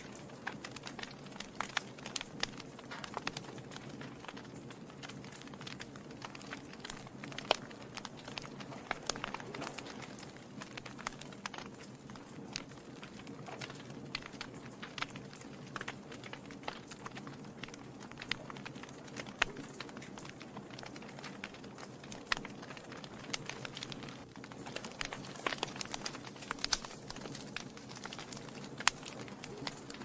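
Wood logs burning in a fireplace, crackling with irregular sharp pops and snaps over a steady background hiss.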